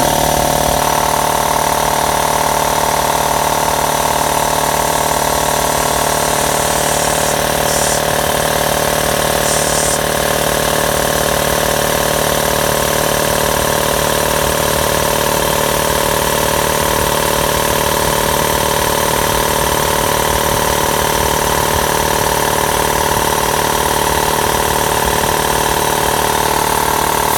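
Sanborn 60-gallon electric air compressor running, really loud and steady, its pump and motor giving an even hum.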